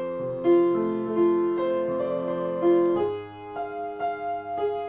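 Solo piano being improvised at a slow pace: sustained chords with single notes struck over them, the harmony changing about three seconds in.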